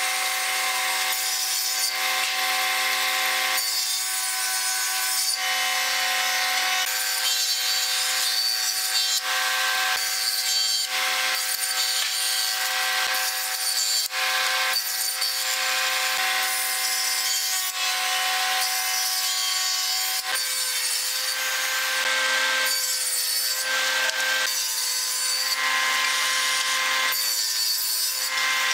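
Table saw running with a steady whine while its blade cuts into an upright wooden workpiece, in a run of short passes that each add a rasping burst of cutting noise.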